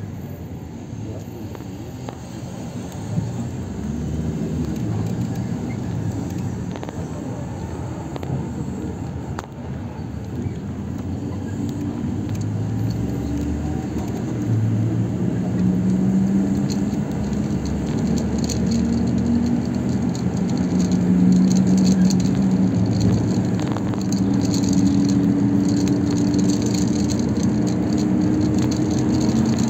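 Road traffic heard from a moving car: steady engine and tyre noise that grows louder over the second half, with a low engine hum that drifts up and down in pitch.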